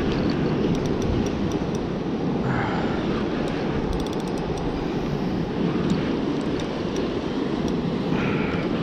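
Steady wind rumble on the microphone over the wash of ocean surf on rocks.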